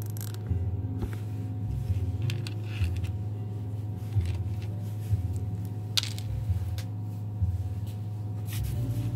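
Small sharp clicks and rustles of hands handling wires and twist-on plastic wire nuts, over background music with a low bass line.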